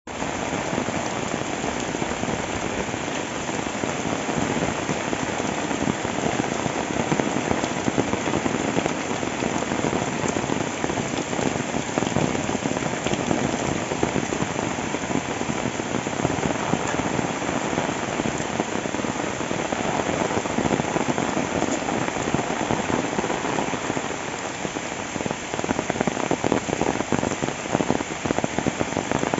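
Steady rain falling, a dense wash of sound with many close, sharp drop impacts.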